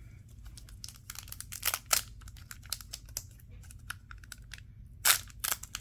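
Yu-Gi-Oh booster pack's foil wrapper being handled and opened: a run of small crinkles and clicks, with two longer crinkling bursts near the end.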